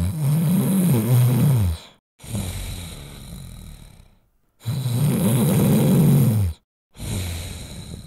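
A person snoring loudly. There are two rattling snores of about two seconds each, one at the start and one about halfway through, and each is followed by a softer breathy exhale that fades out.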